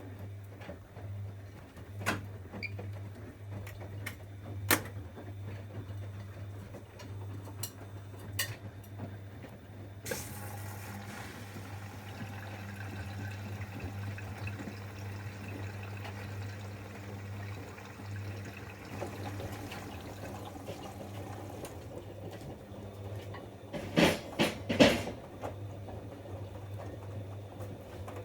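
Bosch Avantixx washing machine filling at the start of its wash: water rushes in through the inlet valve and detergent drawer for about nine seconds, over a steady low hum. Scattered clicks come before the fill, and a brief cluster of loud knocks follows near the end.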